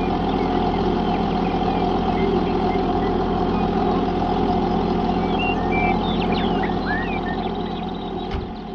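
Small motor of a DIY miniature tractor or road roller running steadily, easing off slightly near the end, with a few brief high chirps over it.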